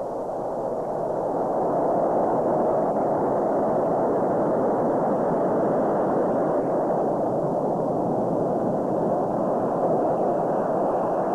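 Loud, steady roar of the jumping combine's engine with no clear pitch. It builds over the first couple of seconds, then holds.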